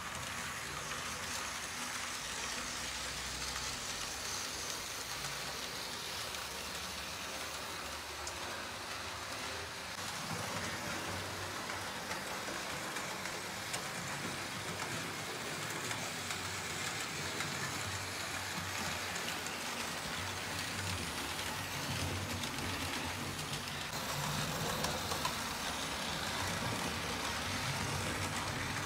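Model trains running on a model railway layout: a steady rolling noise of wheels on track and small motors, with a few faint clicks, growing slightly louder in the second half.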